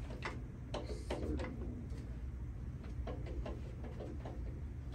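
Light metal clinks and taps of parts being handled and fitted on a bare engine block, in a few short clusters, over a steady low hum.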